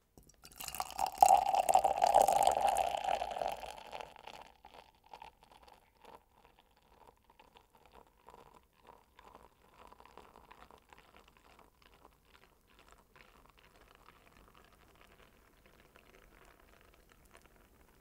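Beer poured into an empty glass: loud splashing for the first three or four seconds as the stream hits the bottom, then a much quieter thin stream running into the rising foam with a soft crackle of popping bubbles.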